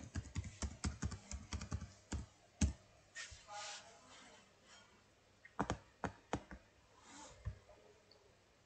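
Typing on a computer keyboard, entering a Wi-Fi password: a quick run of keystrokes over the first two or three seconds, then a few scattered clicks a little later.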